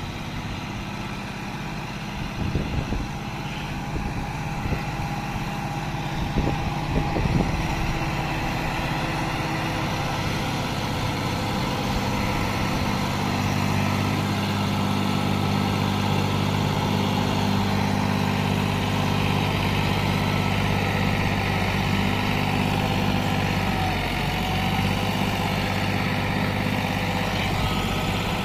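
John Deere 5210 tractor's 50 hp diesel engine running steadily under load while pulling a disc harrow through dry soil. A few sharp knocks and clatters come in the first several seconds, and the engine grows a little louder toward the middle.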